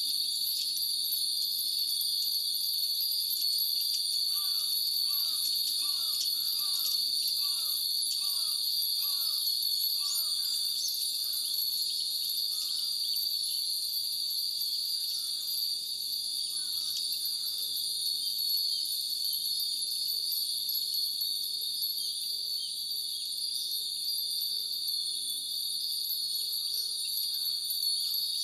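Many Japanese glass wind bells (furin) tinkling in the breeze over the steady, loud shrilling of summer cicadas. A run of short falling chirps, about two a second, comes between about four and eleven seconds in.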